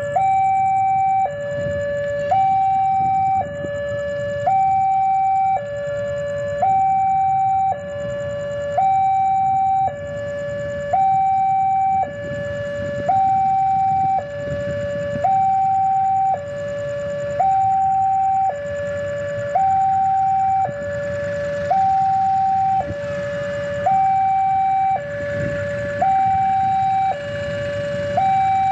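Electronic two-tone warning alarm switching between a high and a low tone, each held about a second, repeating steadily. Under it a low rumble grows, with some hiss, over the last several seconds as an approaching train nears.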